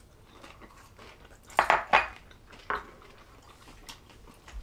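Chopsticks and small sauce dishes clinking a few times, loudest about one and a half to two seconds in, with quiet chewing of gyoza dumplings between.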